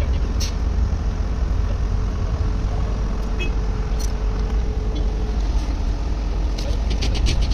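Steady rumble of road traffic, with a faint engine tone in the first half and a few light clicks.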